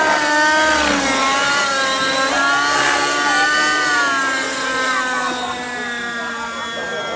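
Velocity 50 N2 radio-controlled helicopter in flight, its Redline 56 nitro glow engine and rotor giving a steady pitched engine note. The pitch dips and rises as the helicopter manoeuvres, and the sound grows a little fainter near the end.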